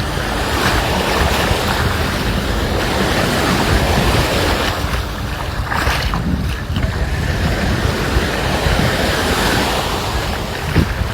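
Sea waves washing onto a sandy beach, with wind buffeting the microphone as a heavy low rumble; one wave swells louder about six seconds in.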